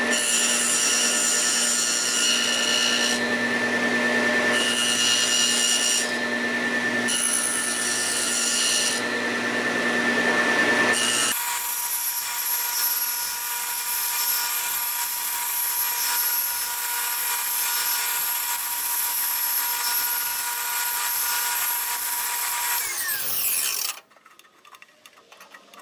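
Table saw with a dado blade spinning and cutting into the end of a wooden bowsprit as the workpiece is rotated slowly over the blade to turn a round end. About eleven seconds in the sound becomes thinner and steadier, and near the end the saw is switched off and winds down.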